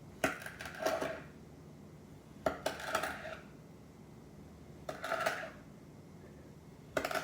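Kinetic sand being cut, a tool clinking against the hard dish beneath: four strokes about two and a half seconds apart, each a sharp click followed by a brief ringing scrape.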